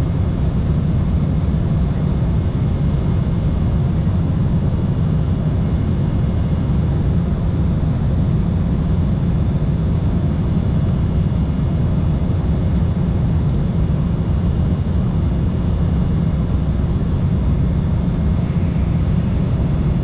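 Cabin noise of an Embraer 195LR during the climb after takeoff: the steady roar of its GE CF34-10E turbofan engines, a deep rumble with a thin high whine over it, heard from inside the cabin beside the engine.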